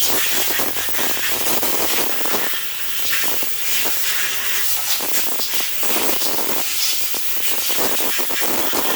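Compressed-air blow gun hissing as it blows water and debris out of the holes in a freshly washed Mopar 360 cylinder head. The loud hiss runs without a break, wavering in strength.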